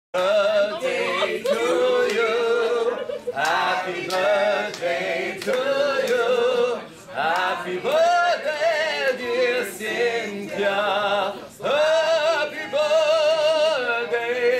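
A man singing a French love song solo, holding long notes with strong vibrato in phrases broken by short pauses for breath.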